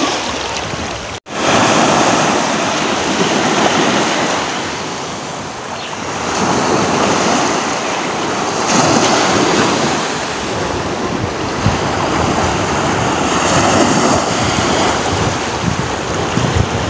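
Small waves breaking and washing up a sandy beach, the surf swelling and easing every few seconds, with wind on the microphone. The sound drops out for a moment about a second in.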